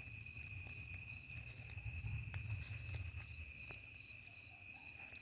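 Night insects chirping: one high chirp repeating evenly a little under three times a second, over a steady high continuous trill.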